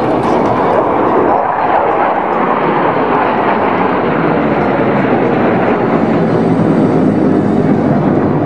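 Loud, steady jet engine noise from a formation of F-16 fighter jets flying overhead.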